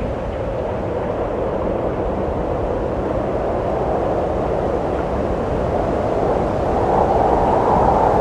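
Wind blowing steadily in a continuous rushing gust, swelling a little louder near the end.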